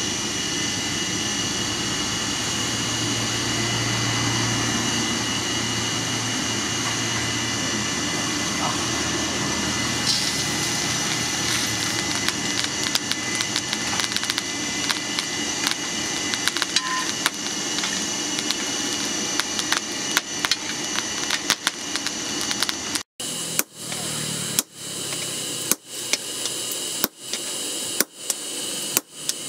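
Forge air blower running steadily into a charcoal fire, a constant whirring hum, with fine crackling from the coals. Near the end this gives way to hammer blows on red-hot steel on an anvil, about one strike a second.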